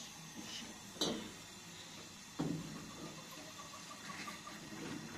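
Things set down on a carpeted floor: a sharp knock about a second in and a duller, lower thud about a second and a half later, as a tray with tea glasses and a teapot and a glass bottle are put down.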